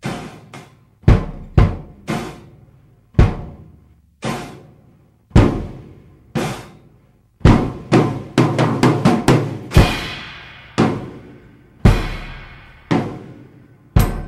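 Drum kit played in loud, separate hits about once a second, with a quick run of strokes around eight to nine seconds in and two longer ringing crashes after it.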